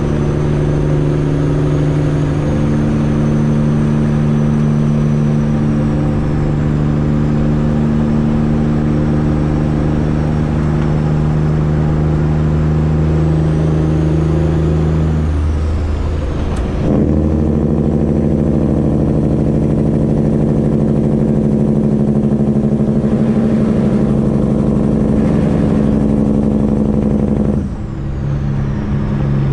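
Freightliner Classic XL semi truck's straight-piped diesel engine running steadily under way. The note breaks off briefly about halfway through and dips again near the end.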